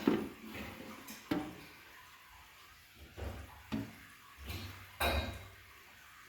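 Dishes and utensils being handled: a series of separate clinks and knocks, about half a dozen, with short pauses between them.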